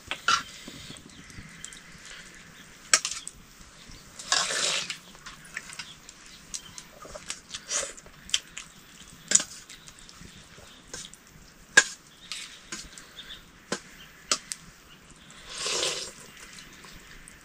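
Scattered light clicks and taps of utensils against dishes, with two longer hissing sounds, one about four seconds in and one near the end.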